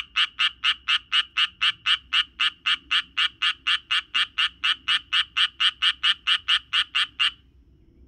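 Japanese tree frog calling: a steady, rapid series of croaks, about four a second, that stops abruptly shortly before the end.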